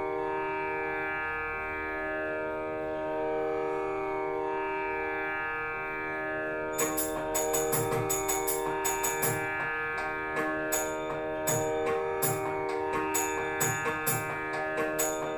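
Indian classical-style instrumental backing music. A sustained melody over a steady drone steps from note to note, and about seven seconds in, drum strokes join at roughly two a second, with a low drum bending in pitch.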